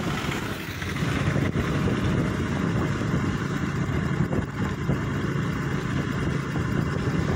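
Vehicle driving along a wet road: a steady engine drone with the hiss of road and tyre noise.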